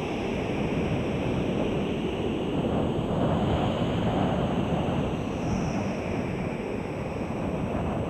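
Wind blowing, a steady rushing noise that swells a little midway.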